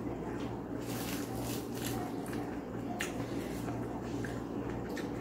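Chewing and mouth sounds of someone eating by hand, with a few sharp smacks or crunches, over a steady low hum.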